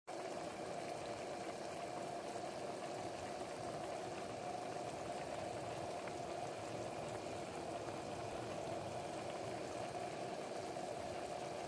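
A pot of penne pasta at a rolling boil, the water bubbling steadily.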